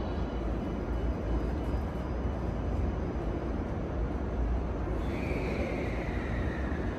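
Steady low hum and rumble of a Thunderbird limited-express electric train standing at the platform with its onboard equipment running, heard under a covered station roof. About five seconds in, a high tone comes in and slowly falls in pitch.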